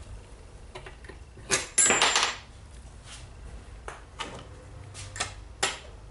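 Small metal tools being handled off-screen: a short scraping rattle about a second and a half in, then several light separate clinks.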